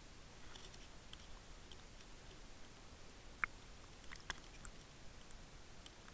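Faint underwater hiss picked up by a submerged Water Wolf camera, with scattered small clicks and pops and one sharper click about three and a half seconds in.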